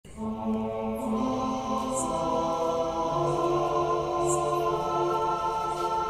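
Background music: slow, sustained chords of long held notes that change gradually, with faint soft high accents every second or so.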